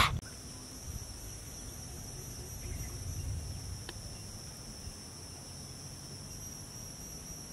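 A chorus of insects in the forest: a steady, high-pitched drone, with a faint low rumble underneath that fades after about four seconds.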